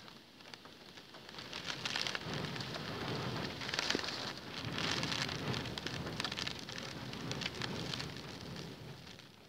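Heavy storm rain surging in a gust: a dense hiss of drops that swells about a second and a half in, stays loud for several seconds with peaks, and dies back near the end to a lighter patter.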